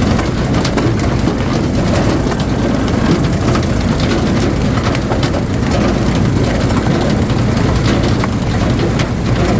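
Engine of a wood splitter running steadily under work, with a few faint sharp clicks or knocks mixed into the steady drone.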